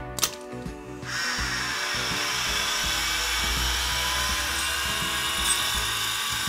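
Ferguson Videostar 3V30 VCR mechanism clicking as it shifts into play, then about a second in the head drum motor starts and runs with a steady whir. The head motor is really noisy, and the worn rubbers leave the deck unable to get all the way into play.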